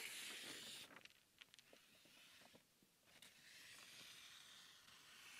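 Faint scratching strokes of a marker pen drawn across a paper shotgun target, outlining the pellet pattern, in near silence.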